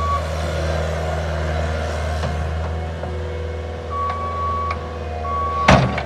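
Cat 246C skid steer's diesel engine running steadily as the machine manoeuvres, with its reversing alarm beeping at the very start and again twice from about four seconds in. A sharp bang just before the end is the loudest sound.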